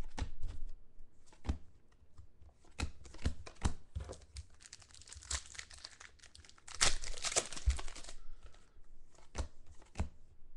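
Foil trading-card pack wrappers crinkling and being torn open, with short clicks and rustles of cards being handled. The densest, loudest crinkling comes about seven seconds in.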